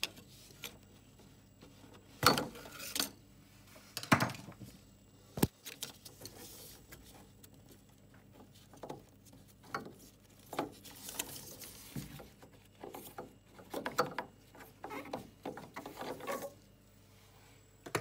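Hands and a flathead screwdriver working inside a Biasi combi boiler to take out its flow turbine: scattered clicks, light knocks and rattles of metal and plastic parts, with a few louder knocks about two and four seconds in.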